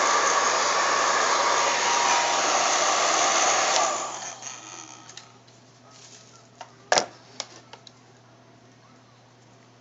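Handheld hot-air blower running with a steady rushing noise while heating the phone to soften its adhesive. It is switched off about four seconds in and winds down over about a second. Then come a few light clicks and one sharp knock about seven seconds in, as parts are handled and set down.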